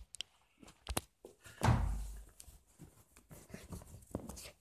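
Dull thumps, clicks and rustling of bedding as a small dog moves about on a bed with a plush toy, the loudest thump about a second and a half in.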